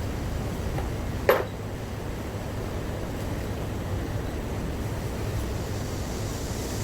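A steady low workshop hum with a single sharp metallic clink about a second in.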